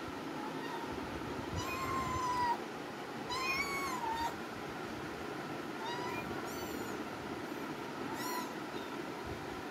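Kittens meowing: about five high-pitched meows, the two longest around two and three and a half seconds in.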